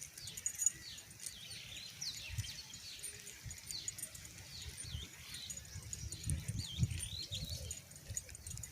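Several small birds chirping and calling, many short quick notes sliding up or down and overlapping one another, with low thumps and rumble underneath.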